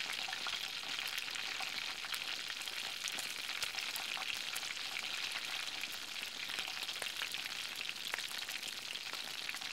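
Raw beef burger patty sizzling on a hot flat-top griddle: a steady hiss of frying fat, dotted with small crackles and pops.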